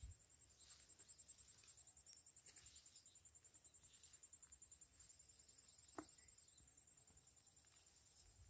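Near silence with a faint, steady insect trill, high-pitched and pulsing rapidly. A single faint click about six seconds in.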